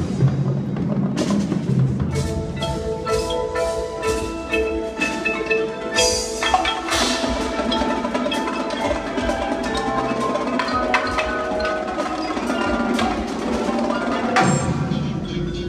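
Indoor percussion ensemble playing: marimbas and other mallet keyboards carry a ringing melody over a low sustained bass, with drum strikes and cymbal crashes. The low bass drops away about fourteen seconds in.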